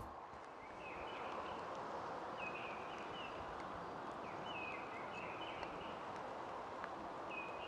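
Small songbirds singing up in the trees: short, repeated chirping phrases every second or so over a steady faint outdoor rush.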